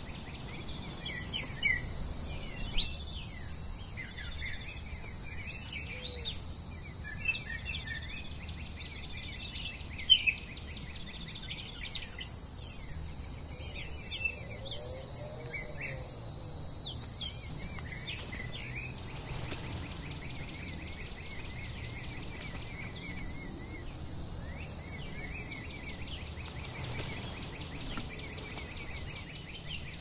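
Songbirds chirping and calling around feeders, many short calls overlapping, busiest in the first half and sparser later, over a steady high-pitched insect drone.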